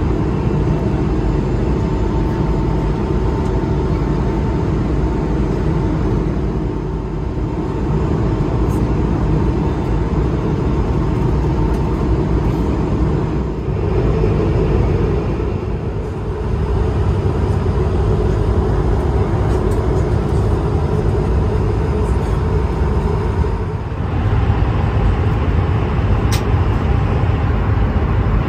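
Airbus A320 cabin noise in flight: the steady roar of the jet engines and rushing air heard from inside the cabin, with a faint steady whine. The level dips briefly a few times.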